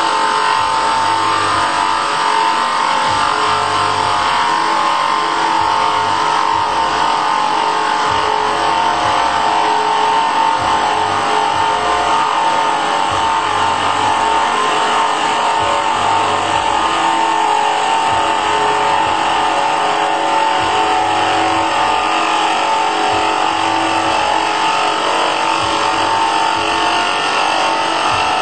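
K2 CNC router spindle running with a steady whine as its small end mill cuts a wooden spindle turning in a Sherline lathe attachment, the cutting noise continuous throughout.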